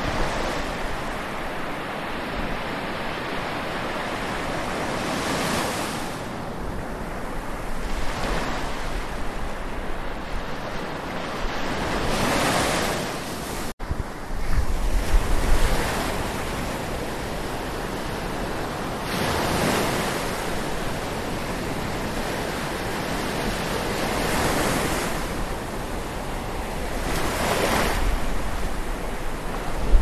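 Atlantic Ocean waves lapping and washing on the shore, each wave swelling and falling away every few seconds. Low wind buffeting on the recorder's microphone comes and goes, and the sound cuts out for an instant about halfway through.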